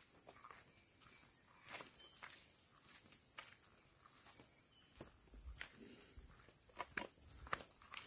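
A steady, high-pitched chorus of insects droning, with irregular footsteps on a concrete footpath. Some low rumbling comes in about five seconds in.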